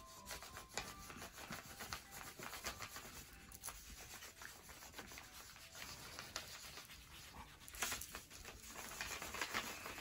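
Faint rustling and rubbing of paper sheets being handled, with scattered light clicks and taps, a little louder about eight seconds in.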